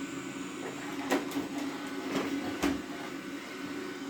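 Roborock Q7 Max robot vacuum running with a steady suction hum and a high whine, with four sharp knocks in the middle as it works along the carpet edges.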